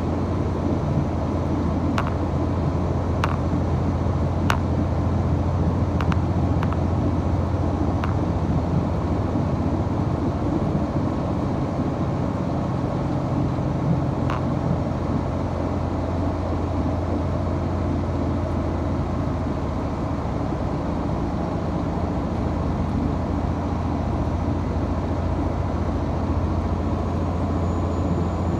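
Diesel engine of a limited express diesel train running at speed, heard from inside the passenger car: a steady low drone with a few sharp clicks in the first half.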